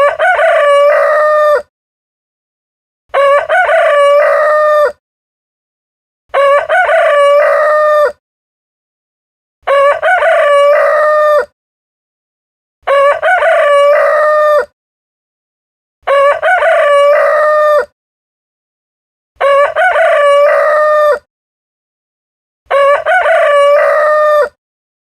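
Rooster crowing cock-a-doodle-doo, eight identical crows each under two seconds long, repeating about every three seconds with dead silence between.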